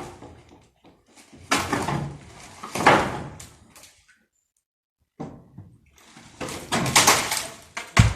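Wooden roof beams and boards being pried loose and dragged: two rough scraping bursts, a pause of about a second, then a longer one.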